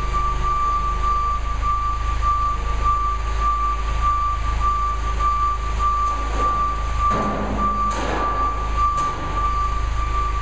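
Forklift engine running steadily, with a steady high tone over it. About seven and eight seconds in come rough scraping sounds, as a long-handled paddle scrapes grape must along the stainless steel press hopper and tank.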